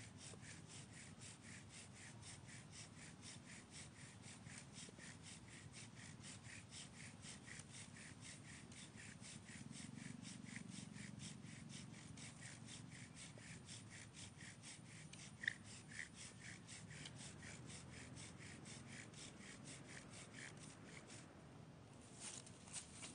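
Bow drill being worked: the wooden spindle rubbing in its hearth board with each stroke of the bow, a faint, even back-and-forth of about three to four strokes a second. The strokes stop near the end, and a couple of light knocks follow.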